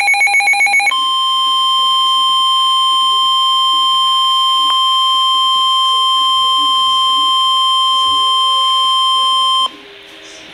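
NOAA Weather Radio emergency alert: the brief, rapidly warbling digital header burst ends about a second in. The steady 1050 Hz warning alarm tone then sounds for about nine seconds and cuts off abruptly, leaving faint radio hiss.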